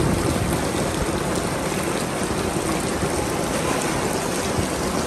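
Heavy rain falling steadily onto a flooded street, a constant even hiss of drops hitting the floodwater.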